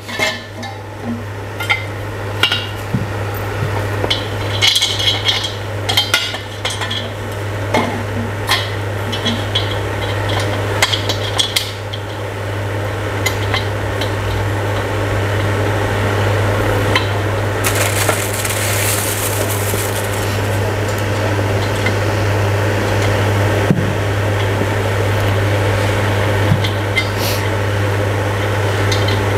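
Metal chair-frame tubes clinking and knocking against each other and the tile floor while a metal dining chair is being assembled by hand. The knocks are frequent in the first half. A steady low hum runs underneath throughout.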